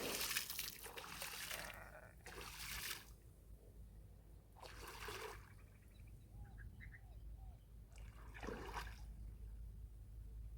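Water splashing and sloshing in several short bursts, as from something being moved about in shallow water.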